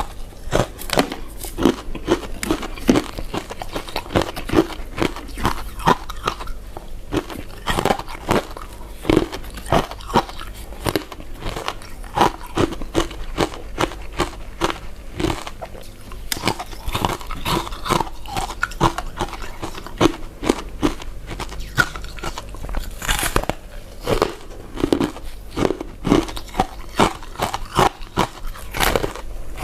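Chewing and biting of soft, chewy glutinous rice desserts, a dense run of quick mouth clicks and smacks.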